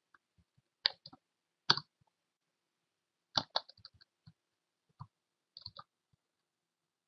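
Irregular keystrokes on a computer keyboard: a few separate clicks with pauses between them.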